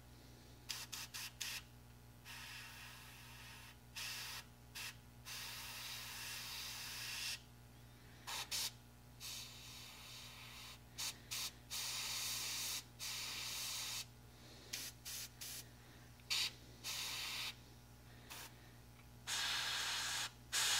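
Airbrush hissing as it sprays chromate paint in many on-off bursts, some quick taps and others held for about two seconds.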